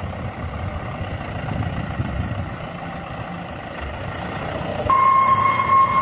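Loaded dump truck's engine running as it drives through mud, a steady low rumble. About five seconds in, a single steady high-pitched tone starts and holds.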